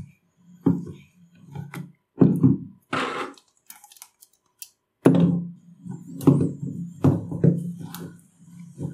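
Clicks, knocks and a short metallic rattle as the crank handle of a Rawlplug mechanical hammer drill is taken off and fitted to the other side of its cast aluminium housing.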